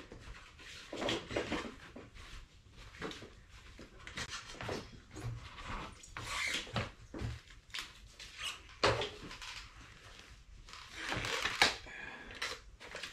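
Snowmobile rear suspension skid being worked out of its track by hand: irregular clunks and knocks of the metal frame, with a louder clunk about nine seconds in and another near the end.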